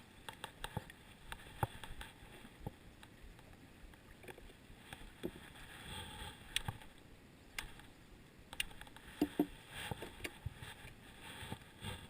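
Irregular light clicks and knocks of fishing gear and a hooked fish being handled, with a couple of louder knocks about nine seconds in.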